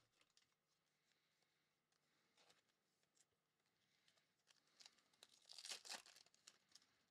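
A foil trading card pack being torn open, its wrapper crinkling. A few faint handling clicks come first, and the tearing and crinkling are loudest about five to six seconds in.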